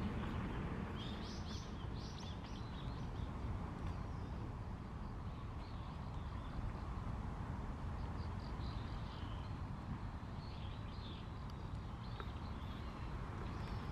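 Outdoor park ambience: a steady low background rumble with small birds chirping in short bursts several times.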